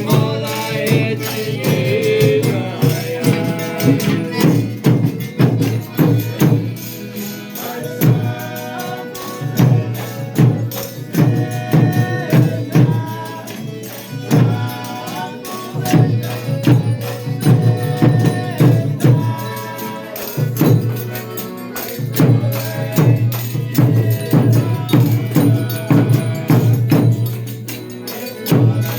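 Folia de Reis folk music: a group of musicians playing a traditional tune with a tambourine beating out a steady rhythm.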